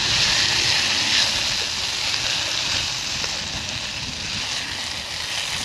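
Chopped vegetables sizzling and steaming in a pan of their own juices over a camp stove: a steady hiss, a little louder in the first second or so.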